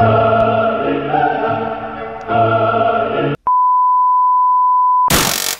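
Held music chords for about three and a half seconds, then a steady high test-card tone that lasts about a second and a half. It ends in a short loud burst of TV static hiss.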